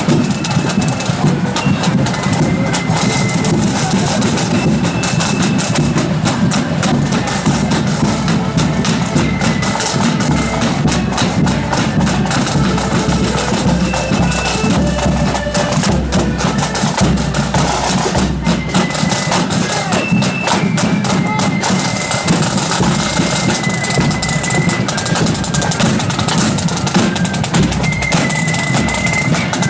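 Marching band playing on parade: rapid side-drum rolls and beats over a heavy bass drum, with short high melody notes above.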